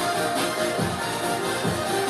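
Upbeat electronic workout music with a steady kick-drum beat.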